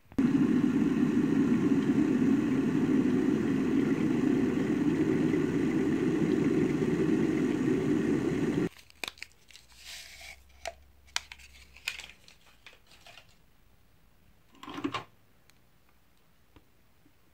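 A small electric motor runs loudly and steadily for almost nine seconds, then cuts off abruptly. Light clicks and handling sounds follow.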